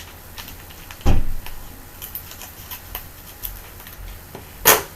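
Hands handling and opening a foil trading-card pack: scattered small crinkles and clicks, a sharp thump about a second in, and a short, louder rustle near the end.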